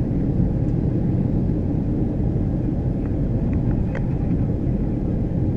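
Steady cabin rumble of a Boeing 737-300 on descent, heard inside the passenger cabin: engine and airflow noise, low and even, with a few faint ticks about three to four seconds in.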